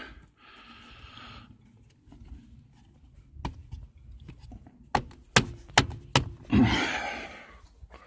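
Mini R50 accelerator pedal being forced onto its mount by hand: a few sharp knocks and clicks in the middle, with the worker's strained breathing, one breath out just after the start and a heavier one after the knocks.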